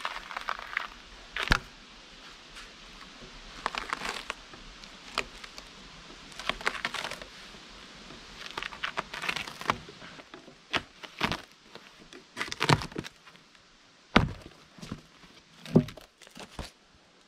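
Bark being peeled and scraped off a cedar log with a large knife: repeated irregular scraping strokes as strips tear and crackle away from the wood, with a few sharper, louder cracks in the second half.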